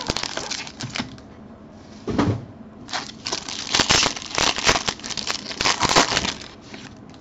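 Foil-wrapped trading-card pack crinkling and rustling as it is lifted out of its box and handled. The crinkling is briefer at first, then dense for a few seconds from about three seconds in.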